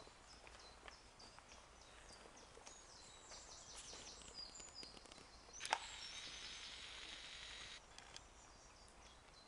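Faint outdoor quiet with small birds chirping in short high notes. A little over halfway there is a sharp click, followed by about two seconds of a high, even hiss that cuts off suddenly.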